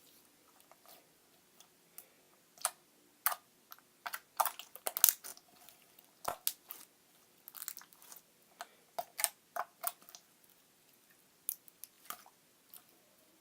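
Clear slime being squished and stretched by hand, giving irregular sharp, sticky pops and clicks, busiest in the middle and again later on.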